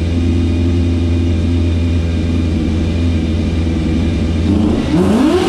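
Yamaha FZS600 Fazer's inline-four engine idling steadily, then revved near the end, its pitch climbing as the throttle is opened.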